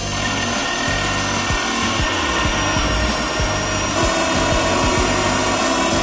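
Cordless drill running steadily under load, a large bit boring into a wooden tabletop and chewing out chips.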